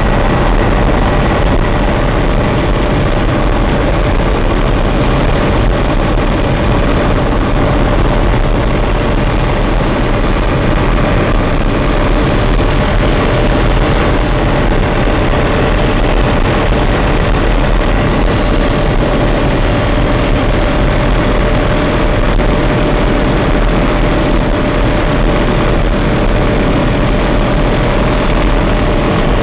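Helicopter in flight, heard by a passenger: a steady, loud drone of engine and rotor with a few steady tones above a heavy low rumble, unchanging throughout.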